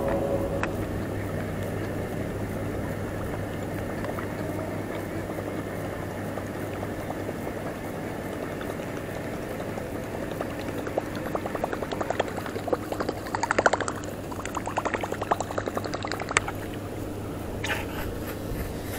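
Topwater muskie lure churning and gurgling across the water surface on the retrieve, a rapid run of splashy plops from about eleven to sixteen seconds in, over a steady low hum.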